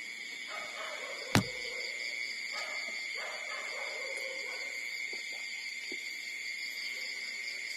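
Newborn puppies making faint, short squeaks and whimpers while nursing, over a steady high-pitched whine. A single sharp knock comes about a second and a half in.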